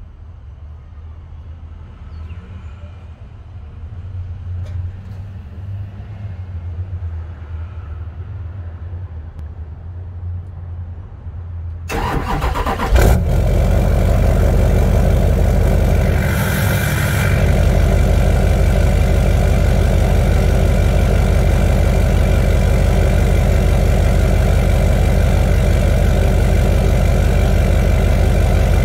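LLY Duramax 6.6-litre V8 turbodiesel in a 2004 GMC Sierra 2500HD cold-starting through a 4-inch MBRP straight-pipe exhaust: about twelve seconds in it cranks for a second, catches, and settles into a loud, steady cold idle.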